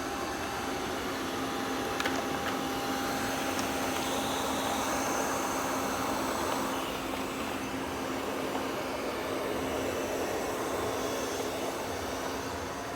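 Robot vacuum cleaner running with a steady whir and hum, with a faint click about two seconds in.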